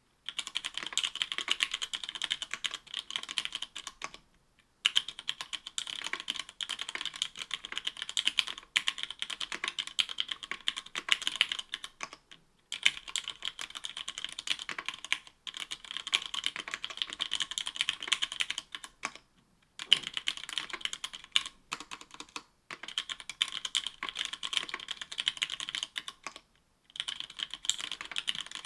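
Fast typing on a mechanical keyboard fitted with stock Cherry MX Black linear switches (60 g) in an aluminum-plate Octagon V3 with GMK keycaps. The keystrokes come in dense runs of a few seconds, each broken off by a brief pause.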